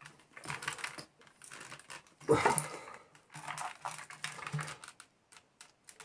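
Plastic casing of a Shark AX950 vacuum hose handle creaking and clicking as its halves are squeezed and pressed together by hand to snap shut, a run of irregular small clicks with one louder moment about two and a half seconds in.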